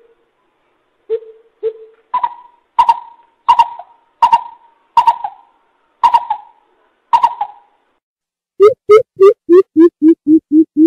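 Coucal calling: a few deep hoots, then a series of about seven higher hoots, each trailing off downward, spaced under a second apart, and near the end a fast run of deep hoots at about three a second.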